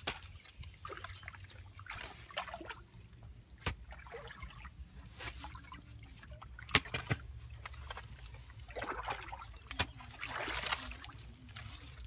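A hoe chopping into a clay bank: three sharp strikes about three seconds apart, with water splashing and trickling between them.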